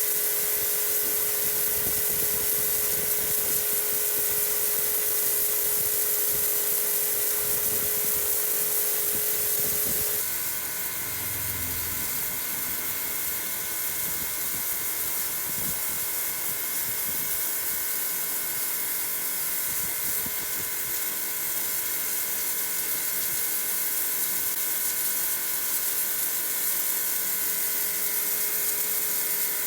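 Electric pressure washer running steadily, its motor whining over the hiss of the water jet on the wall. About ten seconds in, the motor's pitch shifts slightly and the hiss eases a little.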